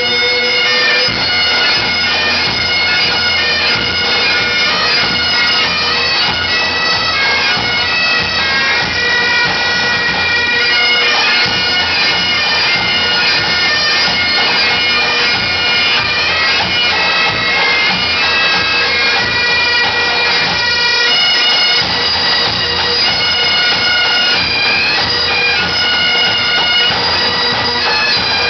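Several Great Highland bagpipes playing a tune together, the melody moving over a steady drone.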